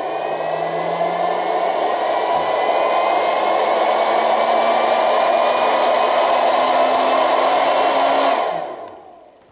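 Induction bolt heater running a heating cycle with a brass rifle case in its coil to anneal the case neck: a steady fan-like whir with a faint whine that slowly rises in pitch. About eight seconds in it shuts off, at the end of its automatic ten-second cycle, and winds down.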